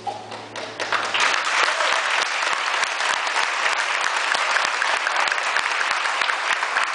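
An audience applauding: dense clapping that breaks out about a second in and holds steady, over the fading tail of the music's last held note.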